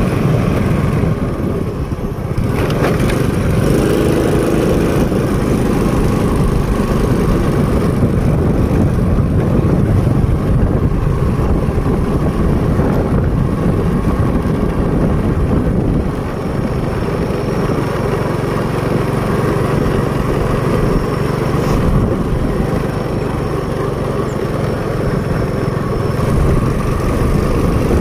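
Small motorcycle running steadily while being ridden at road speed: a continuous engine drone with road noise, easing off slightly about halfway through.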